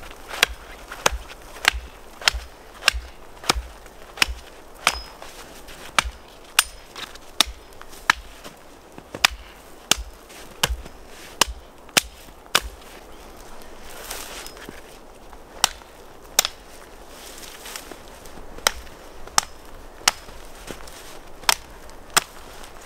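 Axe chopping the branches off a small pine tree: a run of sharp, quick strikes about every half second to second, which pauses briefly about halfway through, when branches rustle, and then resumes.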